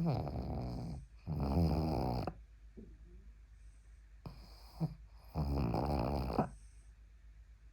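Pug snoring in its sleep: four rasping snores, each up to about a second long, in two close pairs with quiet breathing between. Loud snoring like this is typical of the breed's short, flat-faced airway.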